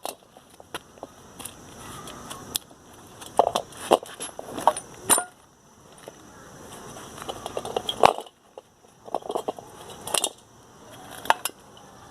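Irregular clicks, knocks and rustling, as of objects being handled, with the sharpest knocks around the middle and a few near the end.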